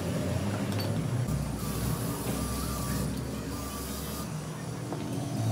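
Small electric bench grinder running with a steady low hum.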